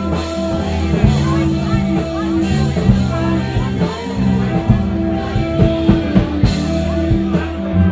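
A rock band playing live: drum kit hits over sustained bass notes, with guitar.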